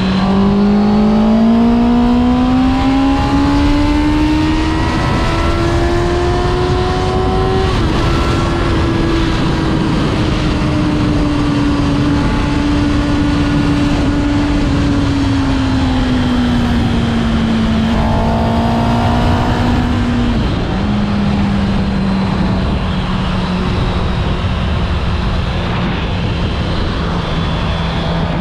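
Honda CB650R's inline-four engine through its stock exhaust. It pulls with the pitch rising steadily for about eight seconds, then eases off slowly, with a brief dip about twenty seconds in, and runs steady after that, over a heavy low rushing noise.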